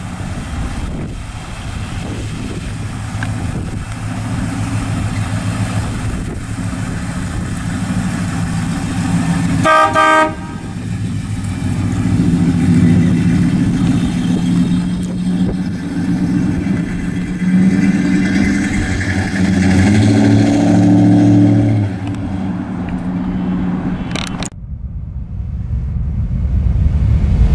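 1955 Chevrolet Bel Air's 265 cubic-inch V8 running as the car pulls out and drives off, its pitch rising and falling with the revs. A brief horn toot comes about ten seconds in. Near the end the engine sound cuts off and a low whoosh takes over.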